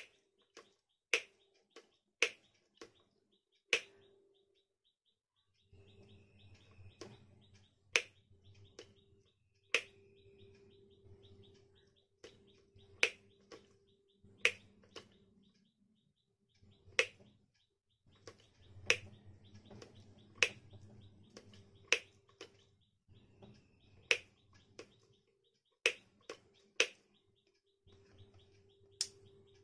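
Sharp single clicks at uneven intervals of about one to two seconds, over a faint low hum that comes and goes, with a few faint short chirps.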